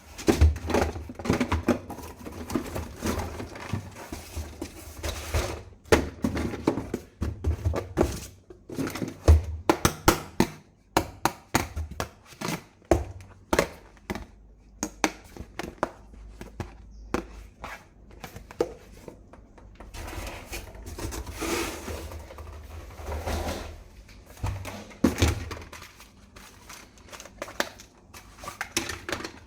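Plastic toy gun and its parts being handled and fitted together: a steady run of clicks, knocks and light clatter, with stretches of rustling in between.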